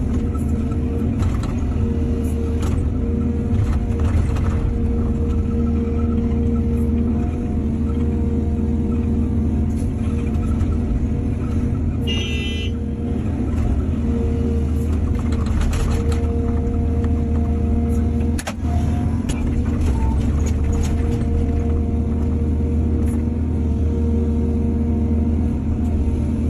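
Excavator's diesel engine running steadily under working load, with scattered knocks and clanks. A brief high squeal comes about twelve seconds in.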